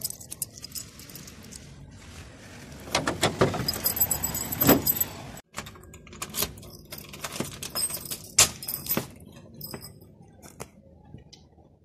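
A bunch of keys jangling and clicking against metal as a padlock is undone on a folding metal security gate, then a key is worked in the lock of a glass inner door. Sharp metallic clicks and knocks come in a loud cluster a few seconds in and again, with a loud click, past the middle.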